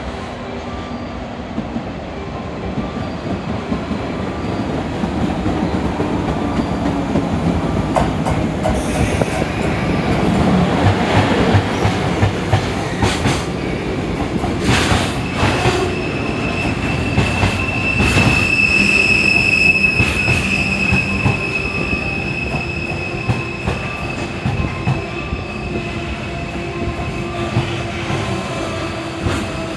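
Freight train hauled by an EF64 electric locomotive running past, its wheels clattering over the rail joints. From about halfway through, a steady high-pitched wheel squeal sets in and holds almost to the end.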